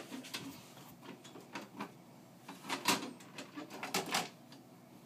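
Plastic flap of a small pet door in a wooden door, knocked and rattled as it is pushed back and forth: a scatter of short knocks and clacks, the loudest about three and four seconds in.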